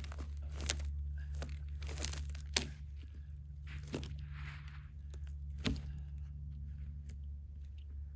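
Crunching and crackling of wood and bark, with four sharp knocks spread through it, over a steady low hum.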